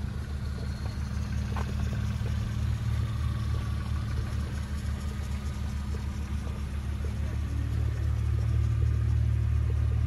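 A 1991 Honda Civic Real Time 4WD wagon's four-cylinder engine running at idle as the car creeps along close by: a steady low drone that gets louder in the last couple of seconds.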